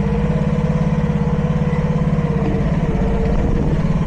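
Mini excavator engine running steadily with an even pulsing beat, with a steady whine above it.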